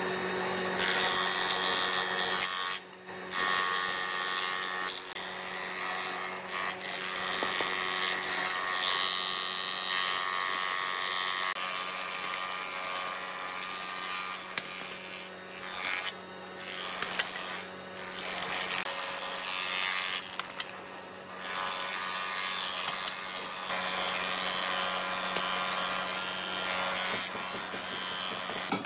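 Thickness planer running, with a steady motor hum under the noise of its knives cutting boards fed through it. The cutting noise dips briefly several times as one pass ends and the next begins.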